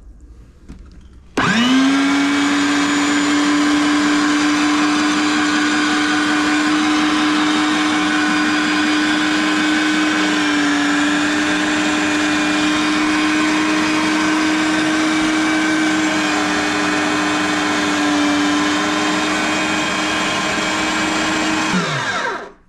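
Electric meat grinder switched on about a second and a half in. It spins up quickly to a steady motor hum and runs while mincing raw tuna, then is switched off near the end and winds down.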